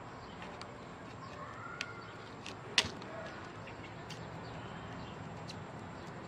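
Kitchen knife cutting cauliflower florets from the head by hand, with a few sharp crisp snaps of the stems, the loudest about three seconds in.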